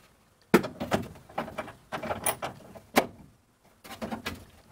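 Metal clicks, knocks and short scrapes as a hand tool and loose window-regulator rail parts are worked inside a car's bare sheet-metal rear quarter panel. A sharp knock comes about half a second in and another about three seconds in.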